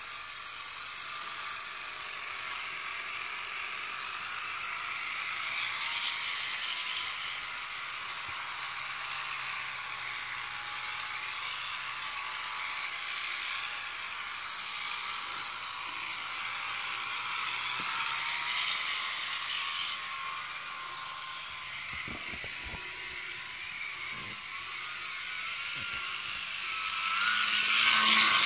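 Jouef model diesel locomotive running along the track, its small electric motor and gear drive giving a steady high whir with a faint rattle, its motor freshly serviced. It grows louder near the end as it passes close by.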